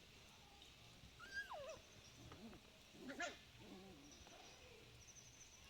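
Puppies play-fighting: a high whine that falls in pitch about a second in, then a short sharp yelp about three seconds in, with small whimpers between.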